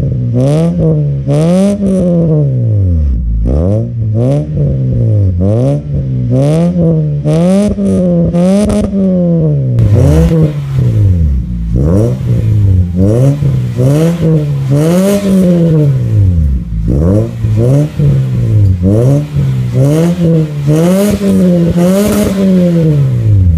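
Toyota Vios four-cylinder engine free-revving through an aftermarket full exhaust system, the pitch climbing and dropping back in quick blips about once every second or so. About ten seconds in it is heard from close to the tailpipe, with more hiss in the note.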